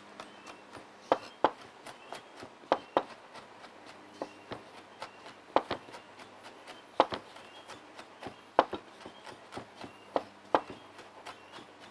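Chef's knife chopping a mild red pepper on a cutting board: irregular sharp taps of the blade striking the board, a handful clearly louder than the rest.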